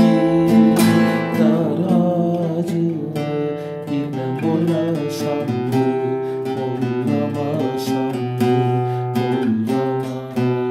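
Nylon-string classical guitar strumming chords, opening on a hard stroke and going on with a steady run of strummed and picked chords.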